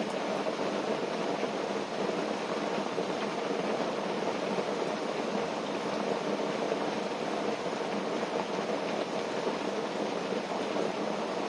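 Steady rain falling on a tent, heard from inside: a dense, even hiss of drops that holds level throughout.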